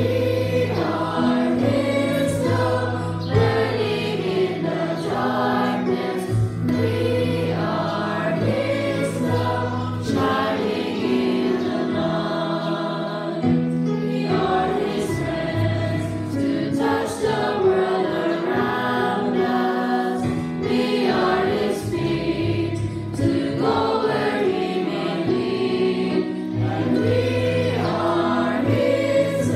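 A congregation singing a song together in chorus, with long held low notes carrying the tune underneath.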